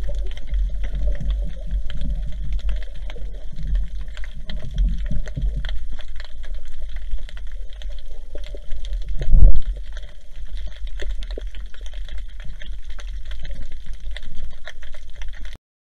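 Muffled underwater sound picked up through a waterproof camera housing: a steady low rumble of water moving past, with scattered clicks and one loud thump about nine and a half seconds in.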